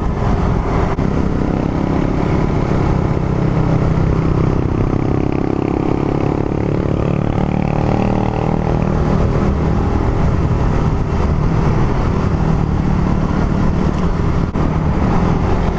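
Suzuki Raider R150 Fi's single-cylinder fuel-injected engine running under way, heard from on board with its stock exhaust. It climbs in pitch from about four seconds in as the bike accelerates, then holds steady, kept to moderate revs for engine break-in.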